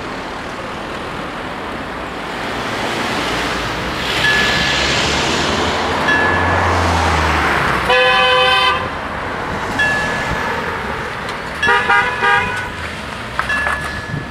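Cars driving over a level crossing, their road noise swelling as they pass. A car horn toots once for under a second about 8 seconds in, and a few shorter horn beeps follow around 12 seconds. A short thin high tone recurs every few seconds in the background.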